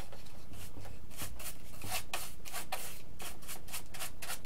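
Small paintbrush stroking clear coat onto an EPO foam airplane fuselage: a quick, scratchy rubbing that repeats about three times a second.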